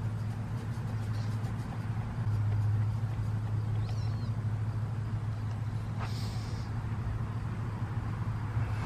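Steady low hum with a faint short squeak or chirp about four seconds in and another brief faint high sound about six seconds in.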